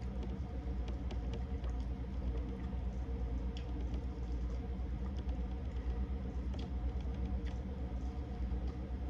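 Eating sounds from a seafood boil: scattered small clicks and crackles of chewing and of handling shellfish and shells, over a steady low hum.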